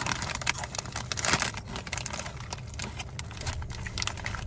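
A foil potato-chip bag crinkling as it is handled: a dense run of crackles, loudest about a second in.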